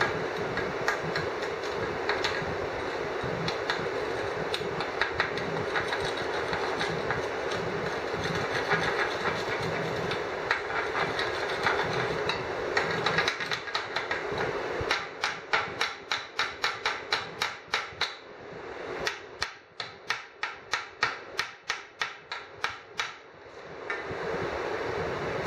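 A 6013 coated electrode arc-welding steel, the arc crackling and hissing steadily as the bead is laid. About halfway through this gives way to a run of sharp clicks, two or three a second with short quiet gaps between them, which stop shortly before the end.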